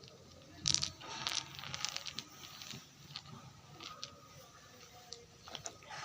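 Packaging being handled and opened by hand: crinkling and sharp clicks, with the loudest crackle about a second in and scattered clicks after.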